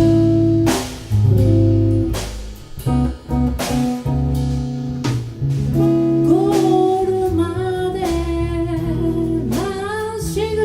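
A live band plays an instrumental passage led by guitar, with bass and drums keeping the beat. About six seconds in, a melodic lead line with wavering pitch comes in over the chords.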